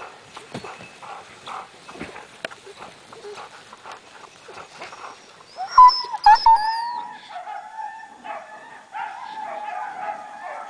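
Husky sled dogs in harness whining and yelping. There are faint crunches and knocks in the first half, a few sharp high yelps a little past halfway, then one long wavering whine through the end.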